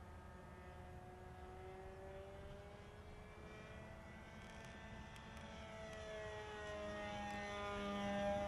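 Glow-fuel engine of a radio-control P-51 Mustang model plane running in flight, a steady buzz whose pitch slides gradually down and then up as the plane passes. It grows louder toward the end.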